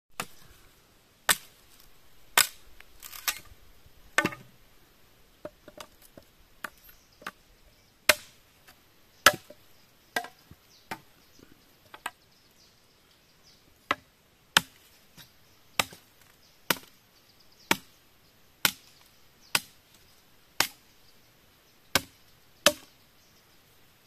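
Machete blade chopping at a green bamboo pole: a run of sharp, separate strokes about one a second, a little uneven at first and steadier later on.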